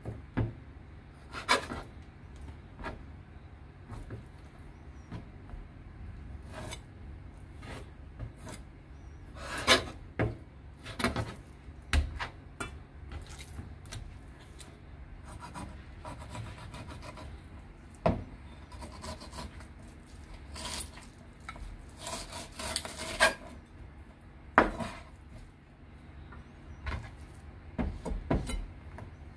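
Kitchen knife working a fish on a wooden cutting board: irregular sharp knocks of the blade on the board and short scraping strokes.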